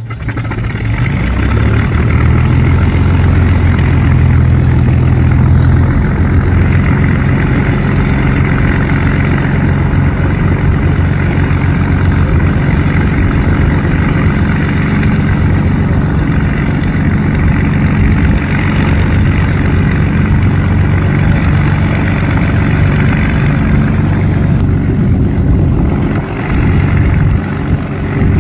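Propeller aircraft piston engine running loud and steady at close range, with an even low engine tone. It cuts in suddenly at the start and dips briefly near the end.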